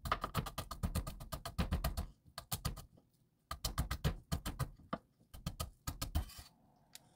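Kitchen knife chopping peeled garlic cloves on a wooden cutting board: fast runs of sharp knocks, several a second, broken by brief pauses.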